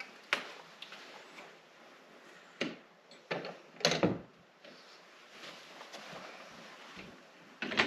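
A few scattered knocks and clunks of handling, the loudest about four seconds in, with quieter ones around three seconds and near the end.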